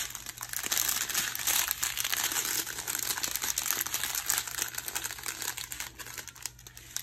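Clear plastic bags of diamond-painting drills crinkling and rustling as they are handled, in irregular crackles that ease off a little near the end.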